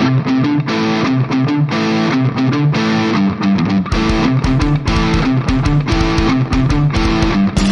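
Background music led by a plucked guitar line; a deep regular beat joins about halfway through.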